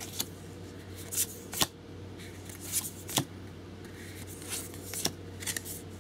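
Thick game cards being slid and flipped by hand one after another: a string of brief papery snaps and swishes at irregular spacing, over a faint steady hum.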